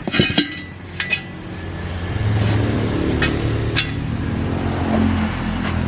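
Metal tools clinking against metal a few times, then a steady low hum that builds from about a second and a half in and holds.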